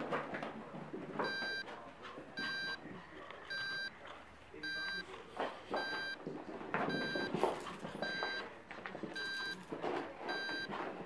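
An electronic beeper sounding a short, high single-pitched beep about once a second, nine times in a row, like a reversing alarm. Under it are scuffles and knocks from a cat and a small dog chasing each other on carpet.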